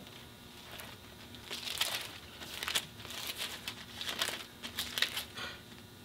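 Bible pages being turned and flipped through, a string of papery rustles and crinkles, busiest in the middle.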